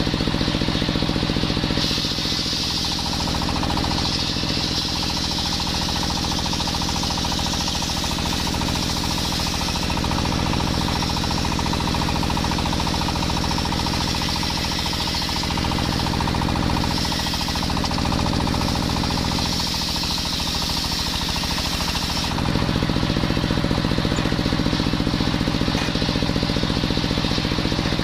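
Belt-driven table circular saw ripping a coconut log lengthwise, a steady high rasp of the blade in the wood over the even running of the stationary engine that drives it. The cut starts about two seconds in and ends a few seconds before the close, when the blade runs free again.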